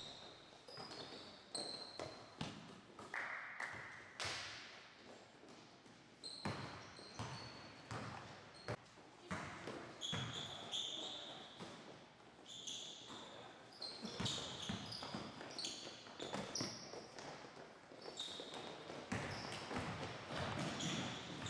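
A basketball dribbling and sneakers squeaking on a hardwood court, with many short, high squeaks scattered among the thumps of the ball.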